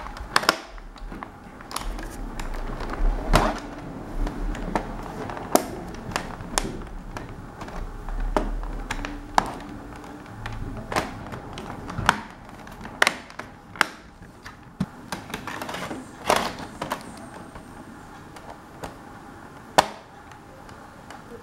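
Irregular sharp clicks and knocks of a laptop's plastic case and parts being handled, about one or two every second.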